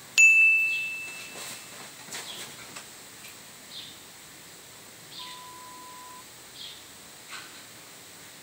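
A bright ding sound effect that rings out and fades over about a second and a half. Afterwards faint scattered chirps and a steady one-second beep about five seconds in.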